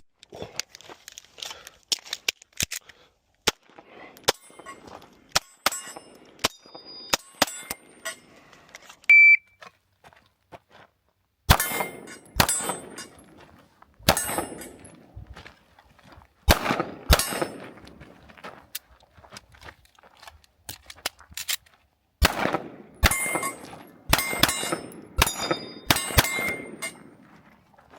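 Fusion Firearms XP Pro 2011-style pistol fired in fast strings of shots, some followed by a metallic ring. A shot timer's short beep sounds about nine seconds in. Fainter, scattered shots come before it.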